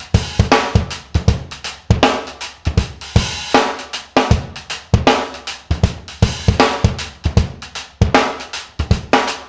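Background music: a drum kit playing a driving beat with kick, snare and crashing cymbals, breaking off sharply at the end.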